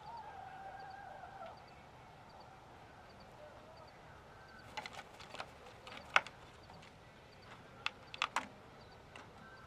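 Chickens vocalizing quietly: a drawn-out call over the first second and a half, with faint high double chirps repeating about twice a second. A handful of sharp clicks and knocks come in the second half, the loudest about six seconds in.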